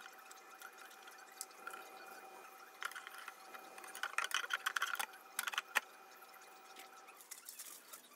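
A cabinet shelf being handled and set into place, with light clicks and knocks in clusters from about three to six seconds in.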